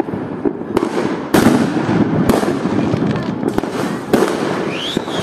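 Diwali firecrackers bursting, a loud sharp bang about every second over a constant din of crackling and distant bursts. A high whistling tone rises near the end.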